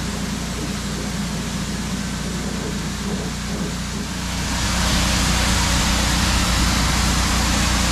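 Gas-engine pressure washer running with a steady hum while its spray hisses, the spray getting louder and brighter about halfway through.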